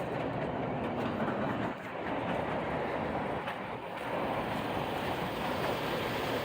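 Distant train running on the rails, a steady rumble and clatter with no clear change.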